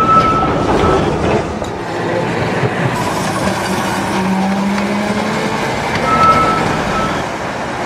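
Electric tram running along its rails: a steady mechanical rumble with a few brief high-pitched tones over it.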